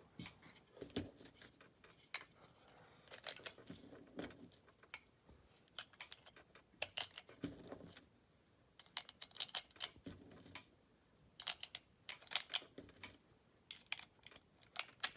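9mm cartridges being thumbed one by one into a Glock 43 pistol magazine from the top: a string of short metallic clicks and snaps at irregular intervals as each round is pressed down past the feed lips against the spring, with small rattles of brass being handled in between.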